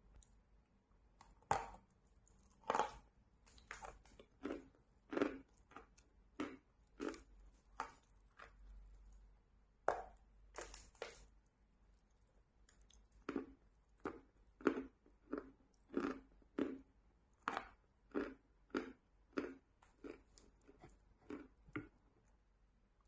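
Close-miked chewing of chalk: a long run of crisp crunches as pieces are bitten and ground between the teeth, about one or two a second, with a short pause around the middle.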